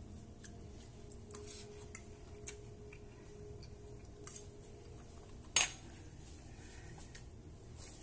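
Cutlery lightly clicking and tapping against a plate a few times, with one sharp, louder clink about five and a half seconds in.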